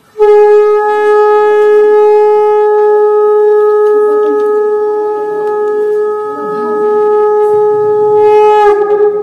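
A conch shell (shankha) blown in one long, loud, steady note, held for about eight seconds, its pitch sagging slightly just before it stops.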